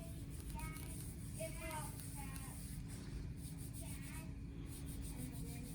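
Faint, indistinct voices over a steady low hum and room noise.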